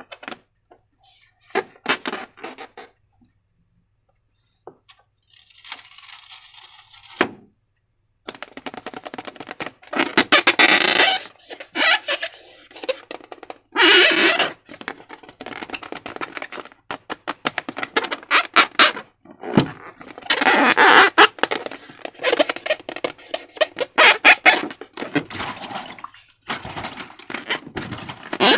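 Slime being squeezed and worked with transparent balloons: irregular squelching and sticky popping, quiet for the first few seconds, then busier, with quick runs of crackling clicks near the end.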